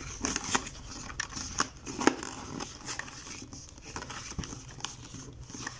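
Cardboard display box being handled and folded, with scattered small clicks and soft rustles. The sharpest click comes about two seconds in.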